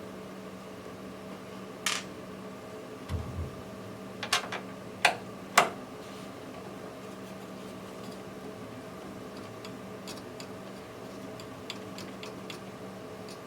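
Sharp metallic clicks and taps of a screwdriver and small screws against a steel PC case and motherboard while the motherboard screws are being taken out: a handful of clicks in the first half, the loudest a little over five seconds in, two dull thumps near three seconds, then faint light ticks. A steady hum runs underneath.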